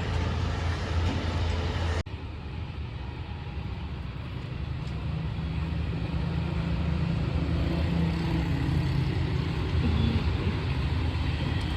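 A moving vehicle's steady running rumble with a low hum, broken by an abrupt cut about two seconds in.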